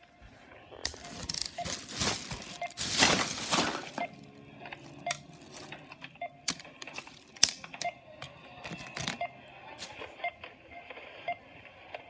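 Plastic rustling and crinkling for about three seconds, then scattered sharp clicks and taps as plastic shopping baskets and bags are handled.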